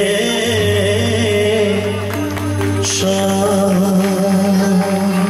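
A male vocalist singing through a PA with a live stage band, over held keyboard chords.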